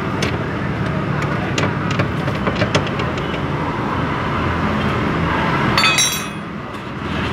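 Steady background of road traffic with a few sharp clicks, and a brief high squeal about six seconds in.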